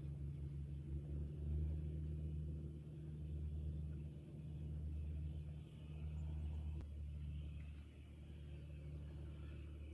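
A low, steady engine rumble that swells and fades gently over a few seconds, with a single sharp click about seven seconds in.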